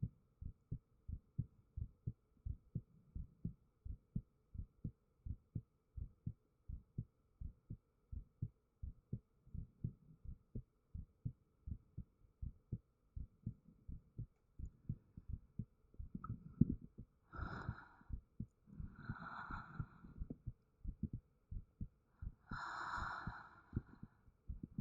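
A person's heartbeat recorded close up: steady lub-dub thumps at a resting pace, a little over one beat a second. Over the last third, three louder breathy noises come over the beat.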